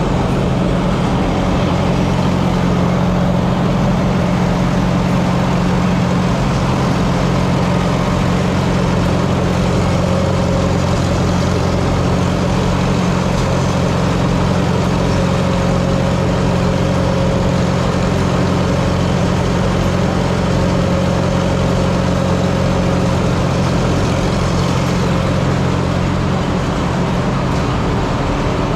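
Antique tractor engine running steadily at an even, unchanging speed, a constant low hum throughout.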